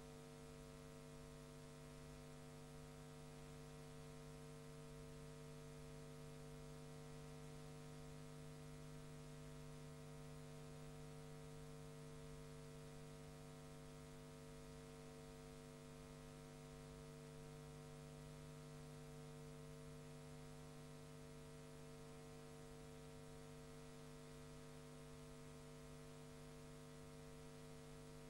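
Near silence: a faint, steady electrical hum with hiss, with no other sound.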